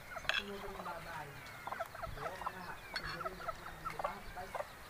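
Chickens clucking in many short, repeated calls.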